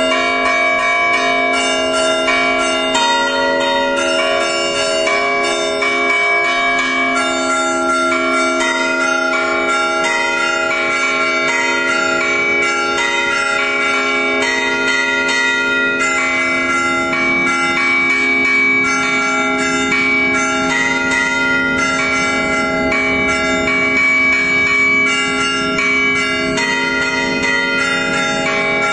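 Church bells ringing continuously, many overlapping bell tones struck in quick, even succession.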